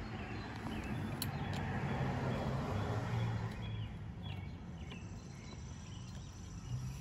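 Outdoor background: a steady low hum that swells for a couple of seconds in the middle and then eases, with faint short high chirps scattered through and a small click about a second in.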